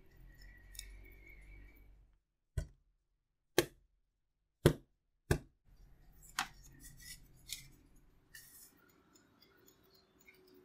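A spatula scraping batter against a glass bowl, then four loud, sharp knocks about a second apart, then lighter clinks of metal loaf tins set down on a metal baking tray.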